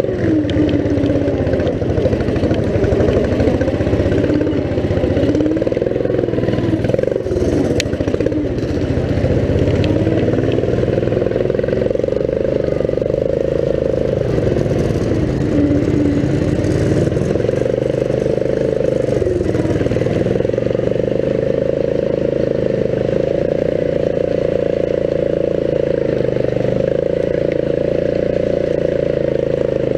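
Riding lawn mower engine running hard under load, its pitch dipping and picking back up several times as it climbs, then holding steady for the last third.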